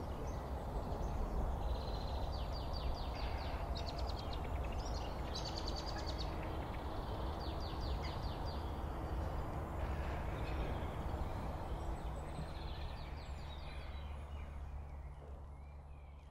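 Outdoor ambience of songbirds singing in rapid trills and chattering phrases over a steady low rumble, fading out near the end.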